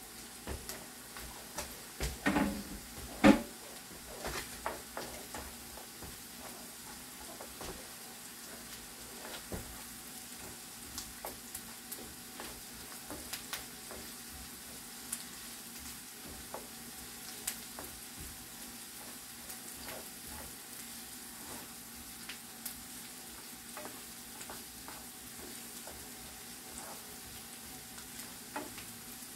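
Garlic and ginger frying in hot oil: a steady sizzle with the small clicks and scrapes of stirring in the pan. A few louder knocks of the utensil against the pan come about two to three seconds in.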